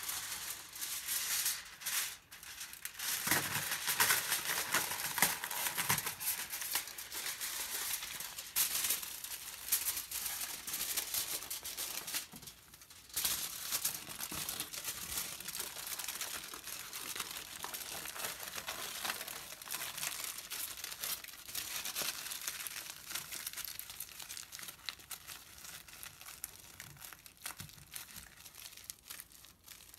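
Aluminium foil crinkling and crumpling as it is pulled from its box, then folded and pressed by hand around a plastic-wrapped burger. The noise runs continuously, loudest in the first few seconds of wrapping, with a brief lull near the middle.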